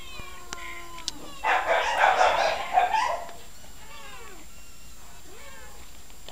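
Domestic cat meowing over and over: a held meow at the start, a louder, rougher cry from about one and a half to three seconds in, then a few softer meows falling in pitch.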